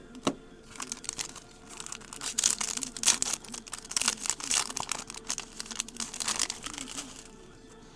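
Foil wrapper of a baseball card pack being torn open and crinkled: a dense run of crisp crackling lasting about six seconds, after a single click at the start.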